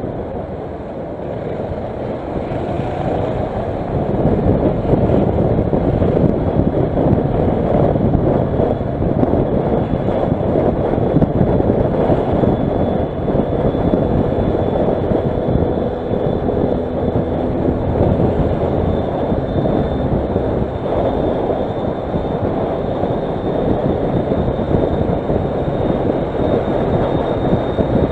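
Kawasaki Versys motorcycle riding at road speed in traffic: its engine running under heavy wind and road noise on the microphone. The noise gets louder about four seconds in.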